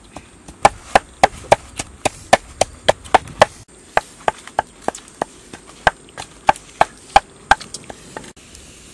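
A steady series of sharp wooden knocks, about three a second, stopping shortly before the end: food being pounded with a pestle.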